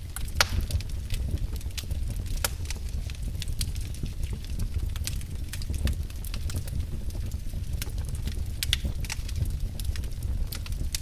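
Wood fire burning in a fireplace: irregular sharp crackles and pops over a steady low rumble of the flames, with a louder pop about half a second in and another near the end.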